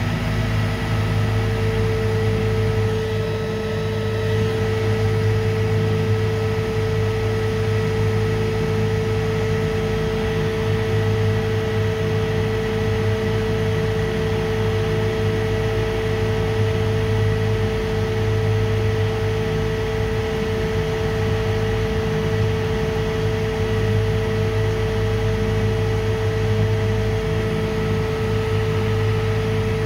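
Electric motor running on a variable frequency drive: a steady, even hum with a constant high whine over it. It is running on low drive voltage, apparently overloaded.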